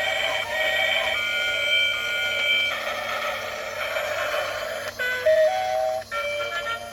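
Music: a melody of held notes that step to a new pitch every second or so, with two brief breaks near the end.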